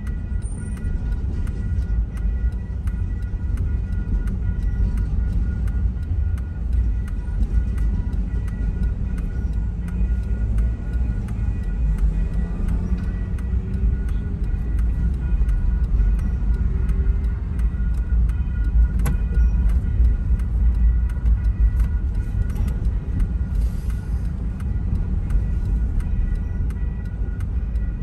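Double-stack container freight train rolling through a grade crossing, heard from inside a stopped car: a steady low rumble of the passing cars. Over it, the crossing warning bell rings in an even, steady rhythm.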